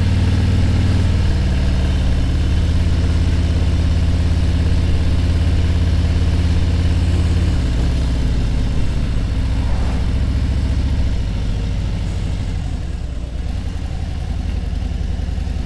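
Motorcycle engine running at low road speed, a steady low drone. About halfway through, the engine note drops lower, and it runs a little quieter near the end.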